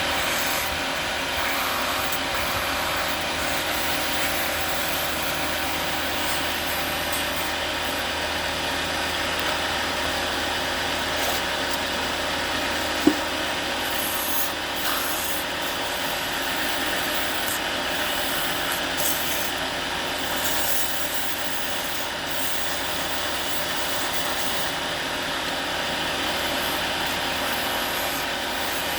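Wood lathe spinning while a turning tool scrapes and cuts a wooden bottle cap: a steady rasping over the machine's even running. A single sharp knock comes about halfway through.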